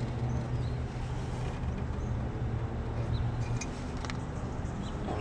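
An engine running steadily with a low, even hum that eases off about three and a half seconds in, with a few faint clicks.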